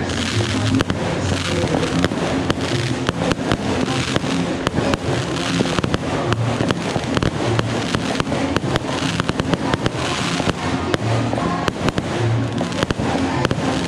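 Fireworks going off in rapid, irregular succession: many sharp cracks and bangs, with music and a bass line playing underneath.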